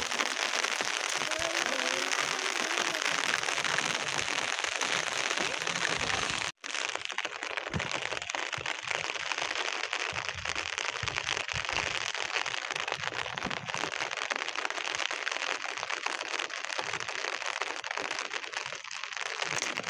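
Heavy rain pattering, heard as a steady crackling hiss, broken by a brief gap about six and a half seconds in.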